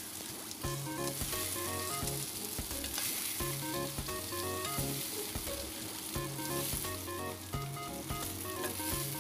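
Fried chicken pieces sizzling in hot oil as they are scooped from a frying pan into a stainless steel pot, with short scrapes and knocks of the utensil. Background music with a repeating bass line plays over it.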